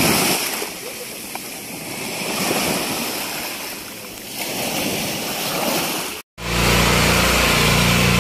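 Open-sea water lapping and splashing, swelling and easing. After a sudden cut about six seconds in, a small boat engine runs steadily.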